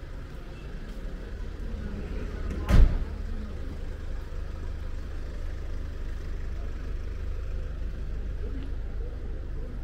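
City street ambience with a steady low traffic rumble, and a single loud thump about three seconds in.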